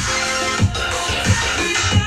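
Electronic music with a heavy bass beat, played through a 2.1 speaker system with a subwoofer and picked up in the room; a deep bass hit lands about every two-thirds of a second.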